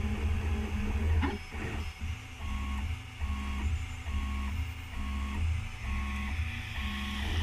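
Homemade 3D printer's stepper motors whining in short repeating tones, a little under one a second, as the hotend prints a small test cube and cylinder, with one rising sweep about a second in. Underneath is a steady low hum.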